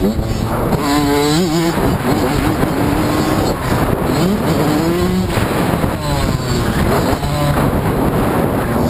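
Dirt bike engine revving up and falling back again and again as the bike is ridden hard around a motocross track, over a steady rush of wind and ground noise.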